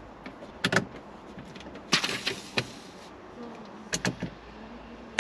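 Handling noises at the car's roll bar and seat: a few sharp clicks and knocks, with a brief rustling scrape about two seconds in and a louder knock at the end.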